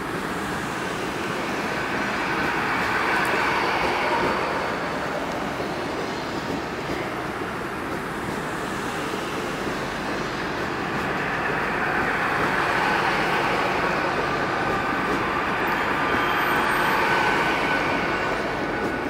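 Great Western Railway Class 802 bi-mode train running past along the platform: a steady rumble of wheels on rail with a thin whine, swelling twice as the carriages go by.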